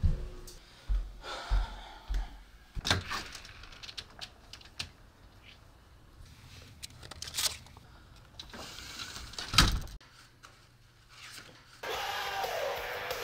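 Footsteps and a front door and glass storm door being opened and handled: a few sharp knocks and thuds with soft rubbing between them. Music starts near the end.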